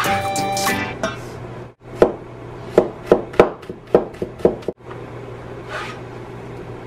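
Cleaver chopping garlic cloves on a plastic cutting board: a run of sharp knocks, about three a second, starting about two seconds in and stopping a little before five seconds.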